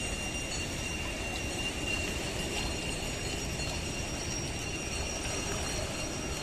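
Fast-flowing Ganga river water rushing and churning over submerged ghat steps, a steady unbroken rush with a faint thin high tone above it.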